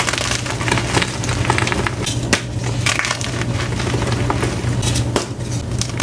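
Blue-dyed and plain gym chalk blocks crushed and crumbled in the hands: dense, continuous crunching and crackling with many sharp snaps. A steady low hum runs underneath.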